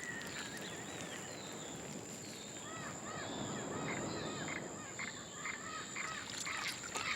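Wild natural ambience: a steady high thin whine over a faint hiss. From about three seconds in, a bird gives a quick series of short arched chirps.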